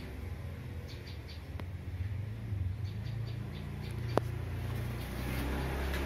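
Maspion orbit ceiling fan running with a steady low motor hum. Small clusters of short high chirps come and go over it, and there is a single sharp click about four seconds in.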